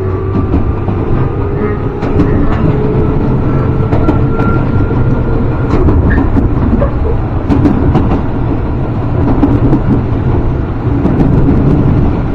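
Tobu Kameido Line electric train running, a steady rumble of wheels on rail. A faint whine climbs slowly in pitch over the first few seconds as the train gathers speed, with scattered clicks over the top.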